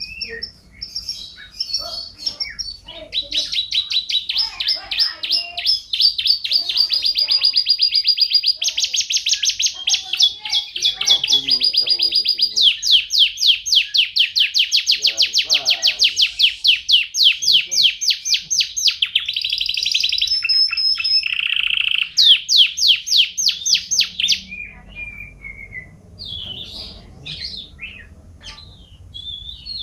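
Domestic canary singing a long, loud song made of rapid trills, each run of repeated notes switching to a new pitch and pattern every few seconds. Near the end the song stops and gives way to softer, scattered chirps.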